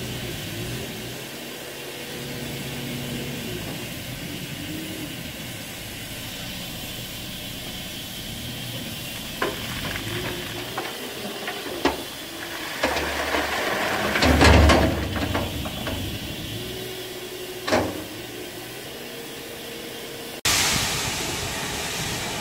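Rebuilt Bulleid West Country class steam locomotive 34027 Taw Valley standing with a steady hiss of steam, while coal is tipped from a loader bucket into its tender: a few knocks, then a clattering rattle of falling coal about a dozen seconds in, loudest a couple of seconds later. Near the end a much louder, steady rush of steam billowing around the front of the engine takes over suddenly.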